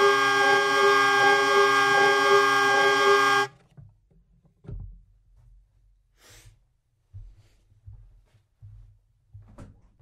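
Hurdy-gurdy holding a steady droning chord, which cuts off suddenly about three and a half seconds in. A soft thump follows about a second later, and a faint knock near the end.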